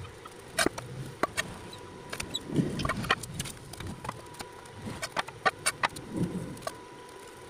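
Steel channel and angle-iron pieces knocking and clinking against each other and the concrete as they are moved and set in place, a series of sharp irregular clanks. Chickens cluck now and then in the background.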